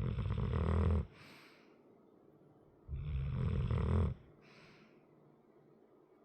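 A large dog snoring in its sleep: two long, loud snores, one at the start and another about three seconds in, each followed by a short, softer breath out.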